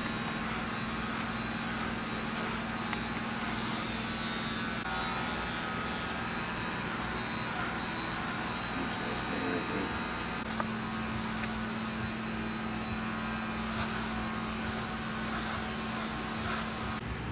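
Electric hair clippers buzzing steadily against a customer's head during a haircut; the buzz gets louder about ten seconds in.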